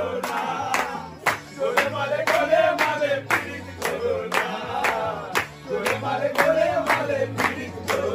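A group of men singing together and clapping in time, about two claps a second.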